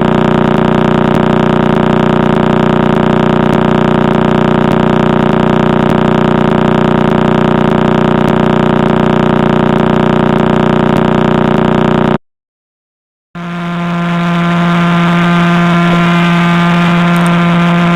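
Sonified radio pulses of the Crab Pulsar: a steady, unchanging buzz built from its rapid rotation. It cuts off about 12 seconds in. After a second of silence, a steady, pitched hum fades in: a millisecond pulsar spinning 174 times a second, its pulse rate heard as the tone's pitch.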